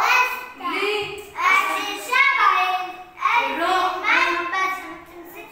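A child singing in short phrases of about a second each, with held, bending notes.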